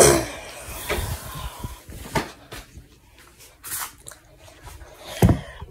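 Handling noise from a phone being moved about: a loud rustle at the start, then scattered rustles, clicks and knocks.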